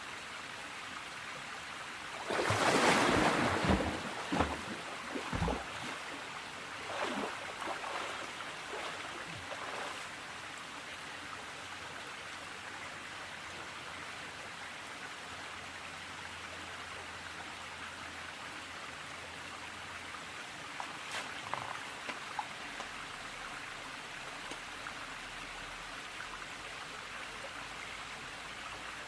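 Steady rush of a mountain stream. A burst of splashing comes about two to four seconds in, smaller splashes follow over the next several seconds, and a few more come around twenty-one seconds.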